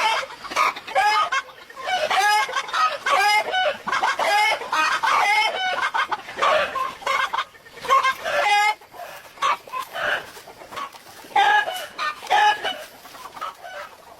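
Chickens clucking and calling, one short pitched call after another in quick succession.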